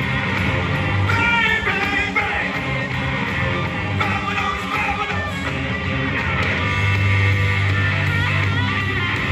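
Background rock song with a singing voice and a steady bass line.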